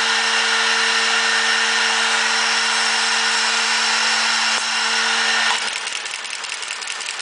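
CNC brush-making machine for round hair brushes running: a loud, steady motor whine that cuts off about five and a half seconds in, leaving a quieter rapid ticking from the machine.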